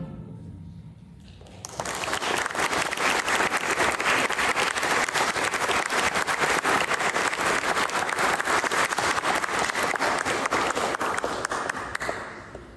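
A concert band's last chord dies away in the hall, then about two seconds in the audience breaks into applause, steady clapping that fades out near the end.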